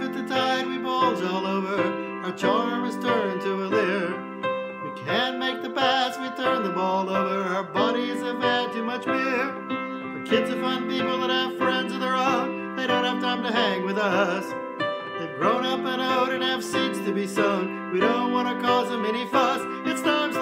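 A man singing a comic song, accompanying himself with chords on the piano.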